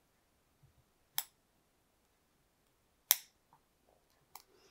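Metal tweezers clicking against a tiny 1/6-scale figure knife as they try to grip a small part: three sharp clicks, about a second in, about three seconds in (the loudest) and near the end.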